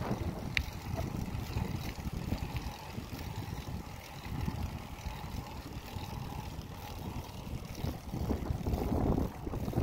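Wind buffeting the microphone: a low, fluctuating rumble with no steady tone, and a brief high squeak about half a second in.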